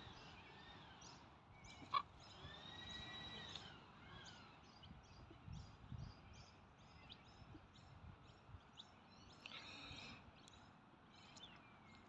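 Faint calls from a flock of silver gulls: a few drawn-out calls that rise and fall in pitch, then a run of short calls about twice a second. There is one sharp click about two seconds in.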